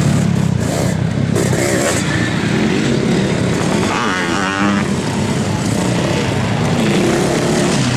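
Sidecar motocross outfits' engines running loud under load as they climb a dirt hill, two outfits passing in turn.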